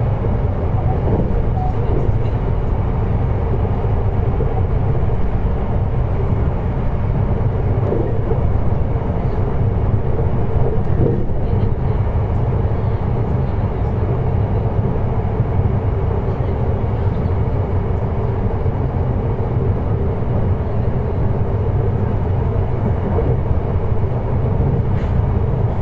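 Running sound inside a JR Hokkaido 733 series electric multiple unit's motor car: a steady low rumble of wheels on rail with a faint motor hum, holding a constant speed between stations. Now and then there is a faint click.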